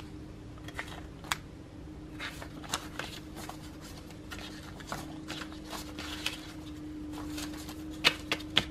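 Paper banknotes rustling and flicking as they are fanned and counted by hand, with a few sharper snaps near the end as the bills are pushed back into a binder envelope.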